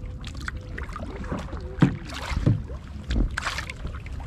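Kayak paddling: paddle blades dipping and splashing in the water, with a few sharp knocks in the middle of the stretch.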